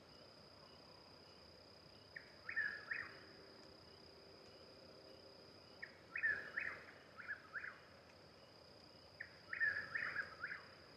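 Chuck-will's-widows singing their rhythmic 'chuck-will's-widow' song, three bouts a few seconds apart, with extra notes in the later bouts from a second bird calling. A steady high insect trill runs underneath.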